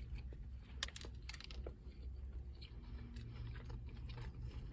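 A person biting into and chewing a Big Mac, with scattered wet mouth clicks and smacks, over a low steady hum.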